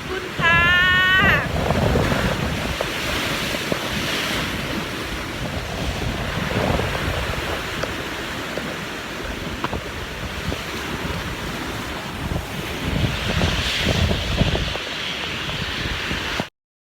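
Sea waves surging and breaking in strong wind, with wind buffeting the microphone; the surf swells louder about two seconds in and again near the end, then cuts off suddenly.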